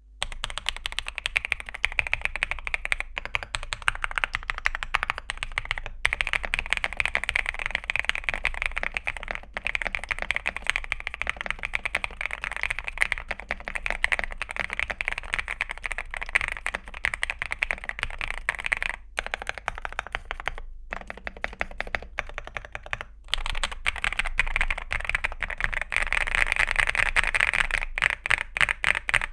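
Fast, continuous typing on a Zuoya GMK87 mechanical keyboard with MMD NP V4 linear switches (42 g) and XDA-profile PBT plastic keycaps, keystrokes clacking in a dense stream with a few brief breaks past the middle.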